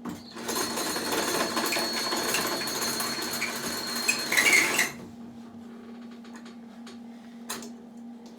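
Electric welding arc crackling steadily through a weld of about five seconds, with a thin high whine over it, then cutting off suddenly. A single sharp click comes near the end.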